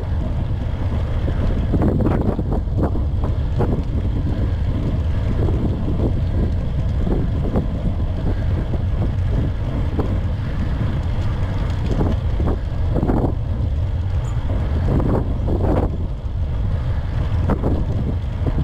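Wind rumbling on the camera microphone of a road cyclist climbing at about 17 km/h, a steady low buffeting with brief louder puffs every few seconds.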